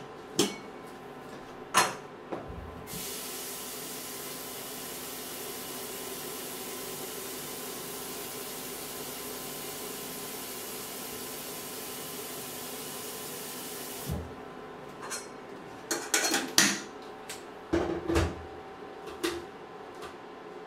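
Kitchen clatter: a couple of sharp knocks, then a steady hiss that starts and cuts off abruptly after about eleven seconds, followed by a flurry of knocks and clattering of pots or utensils.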